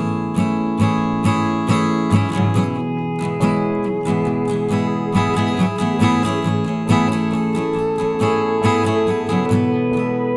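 Music led by an acoustic guitar strumming chords, with strokes about twice a second, and a held note sounding over it.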